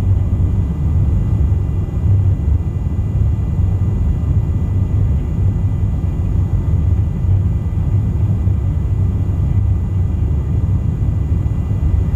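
Steady low in-flight drone of a refuelling tanker aircraft's engines and airflow, heard from inside the aircraft, with a faint steady high whine over it.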